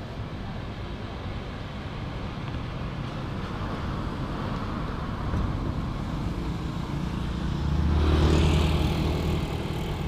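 A road vehicle's engine and tyres building up as it approaches, loudest about eight seconds in as it passes, then fading away.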